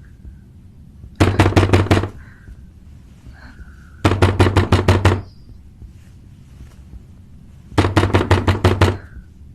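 Rapid, loud banging on a door: three bursts of fast pounding strikes, each lasting about a second, a few seconds apart.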